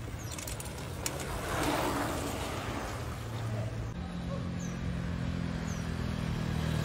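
Outdoor street noise, with a small motorcycle engine running steadily from about four seconds in.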